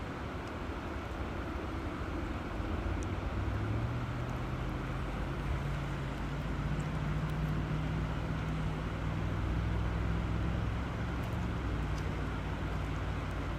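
Steady rushing of river water, with a low engine hum underneath that rises in pitch about three and a half seconds in and drops back a little near the end.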